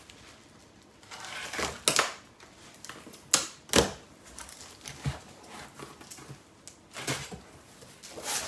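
Cardboard boxes and packaging being rummaged through by hand: irregular rustling, scraping and light knocks, loudest a little over three seconds in.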